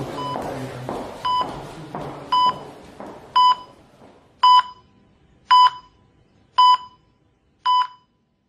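Heart monitor beeping steadily about once a second, each beep a short tone at one pitch. The beeps grow louder over the first few seconds while a murky low background sound fades away beneath them.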